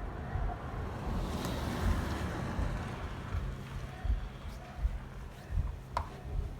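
Honda CD90 12V single-cylinder four-stroke engine running at low speed with an uneven low putter, and a sharp click about six seconds in.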